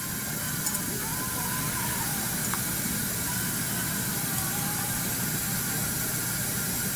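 Steady hiss with a low hum beneath it: the running background noise of a dental operatory during suturing.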